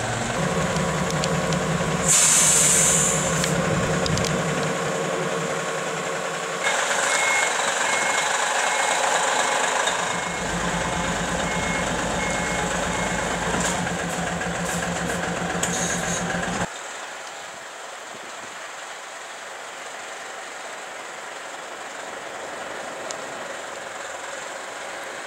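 Heavy lorries' diesel engines running at low speed, with a sharp hiss of air-brake air about two seconds in. A reversing alarm beeps steadily for several seconds over the engine. Near the end the engine sound stops and a quieter steady background noise remains.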